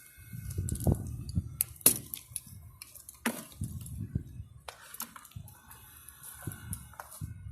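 Scattered light clicks, clinks and knocks of hands and tools handling small parts, with uneven low bumps; the loudest cluster is about one to two seconds in.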